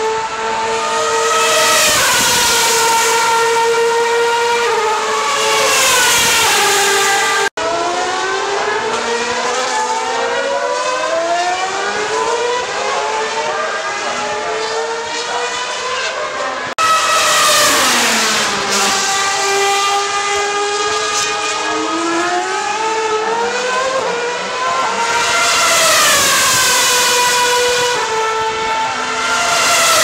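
2013 Formula 1 cars' 2.4-litre naturally aspirated V8 engines at high revs passing by, pitch climbing in steps through upshifts and falling away as cars brake, downshift and pass, with several cars overlapping at times. The sound cuts abruptly twice, about seven and a half and seventeen seconds in.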